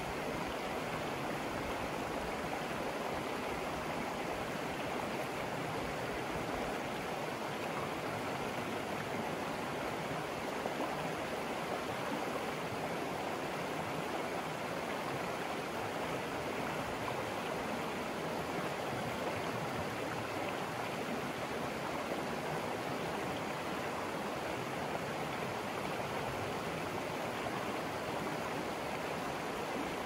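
Shallow rocky river rushing steadily over stones and riffles: an even, unbroken sound of running water.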